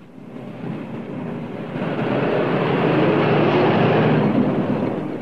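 A car engine passing by: it swells to its loudest about three to four seconds in, then fades away.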